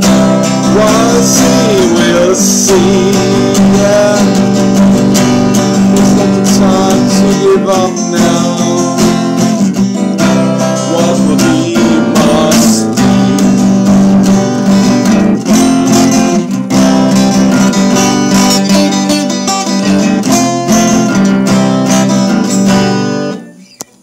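Acoustic guitar strummed steadily, with a man's voice singing along in places. The playing stops near the end.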